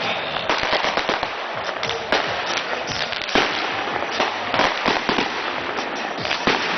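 Fireworks going off in a dense, rapid stream of crackling pops and bangs, with a louder bang about halfway through.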